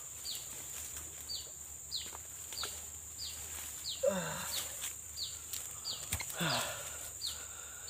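Outdoor wildlife ambience: a short, high, falling chirp repeats about every two-thirds of a second over a steady high-pitched insect drone. A couple of lower falling calls come about four and six and a half seconds in.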